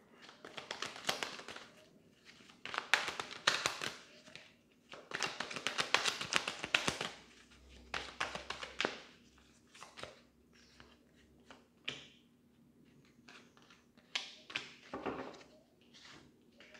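A deck of tarot cards being shuffled and handled: several bursts of rapid card flutter and clicks lasting a second or two each, with sparser clicks between them.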